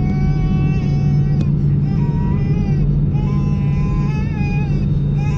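Airliner cabin noise during taxi: the Airbus A320's engines at idle and the cabin air give a steady low hum. Over it a young child cries in several long, wavering wails.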